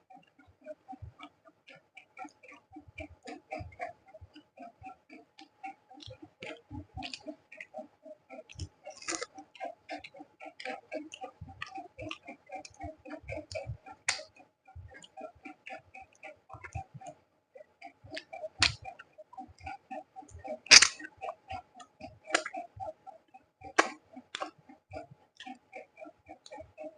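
Close-miked eating sounds: steady, fast chewing with wet mouth clicks and smacks, one sharper smack about two-thirds of the way through.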